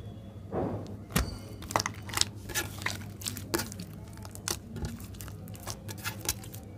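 Glossy slime being squeezed, folded and pressed by hand, giving a run of irregular sharp clicks and pops as air pockets in it burst, starting about a second in.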